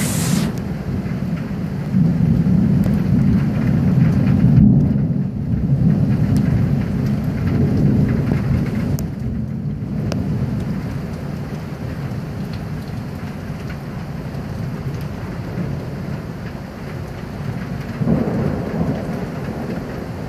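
Heavy downpour with rolling thunder. A low rumble swells about two seconds in and runs on for several seconds, and another rises near the end, over the steady hiss of the rain.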